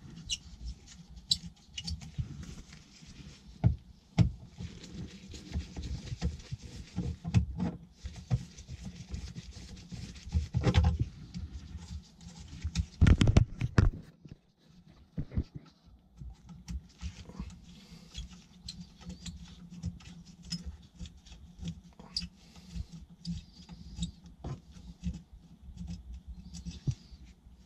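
Hand-work on electrical wiring and an outlet box: irregular clicks, taps and scraping, with louder clusters of knocks about ten and thirteen seconds in.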